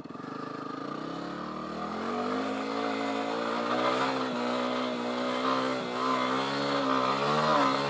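Yamaha WR250R single-cylinder dirt-bike engine under way. Its pitch climbs over the first two seconds, then holds with small rises and dips as the throttle is worked.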